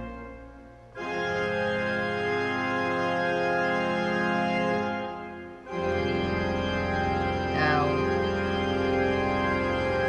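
Cathedral pipe organ playing long, sustained chords. The sound dies away briefly, then a new chord starts about a second in. A fuller chord follows a brief fade near the six-second mark.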